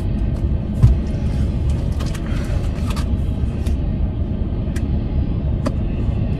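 Steady low rumble of road and engine noise inside the cabin of a moving car, with a sharp knock about a second in and a few faint clicks.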